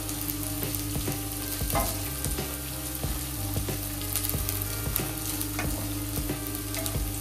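Chopped onions, green chillies, ginger and garlic sizzling in hot oil in a steel kadhai on low flame, with a spatula repeatedly scraping and tapping the pan as it stirs. A steady low hum runs underneath.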